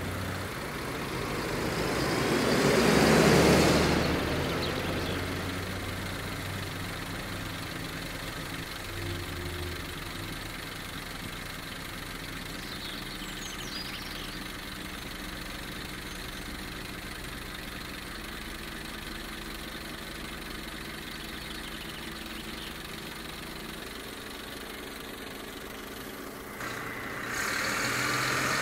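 A road vehicle passes, loudest about three seconds in, then an engine idles steadily. Near the end another vehicle's noise rises suddenly.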